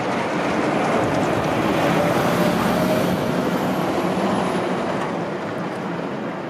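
Freight train of open box wagons rolling past on the rails: a steady rumble and clatter of wagon wheels on track that swells about two seconds in and eases off towards the end.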